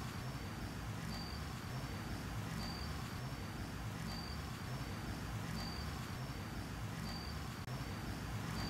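Crickets chirping: a high, thin chirp in short, evenly spaced pulses, with a louder chirp about every second and a half, over a steady low rumble.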